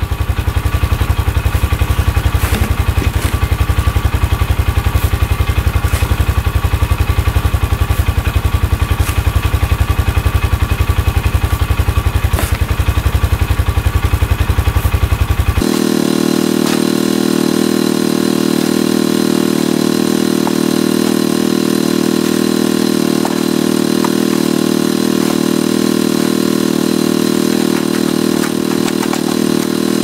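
Polaris Ranger 500 UTV's single-cylinder engine idling with a steady, fast low throb. About halfway through the sound changes abruptly: the low throb drops away, leaving a steadier, higher hum.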